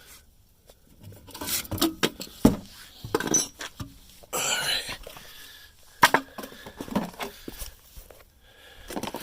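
Shock absorber parts and hand tools being handled: scattered knocks, clunks and scrapes, with sharp knocks about two and a half and six seconds in.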